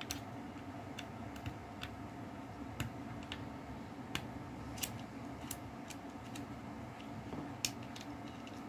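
Light, irregular clicks and taps of a Minolta film camera being picked up and handled, about a dozen over the stretch, over a steady low hum.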